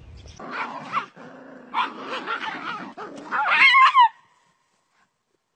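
Small dog yelping and whimpering in a series of short cries, the loudest and highest just before four seconds in, ending on a falling yelp; the sound then cuts off suddenly.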